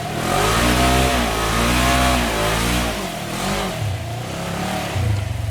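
Side-by-side UTV engine revving hard in repeated surges of throttle, with a short blip, then settling to a lower, steadier running note near the end.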